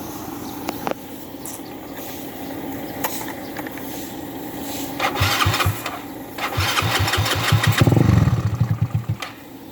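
Motorcycle fitted with a Razer aftermarket exhaust pipe being started: the starter cranks in a short try about five seconds in, cranks again a second later, and the engine fires loudly through the pipe for about a second before dropping away.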